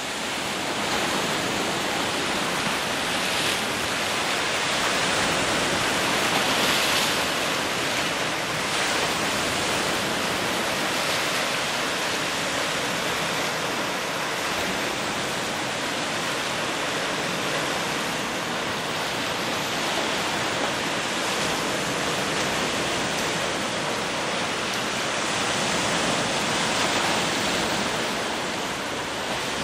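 Steady rushing of strong wind on the microphone mixed with surf breaking on the shore, swelling now and then.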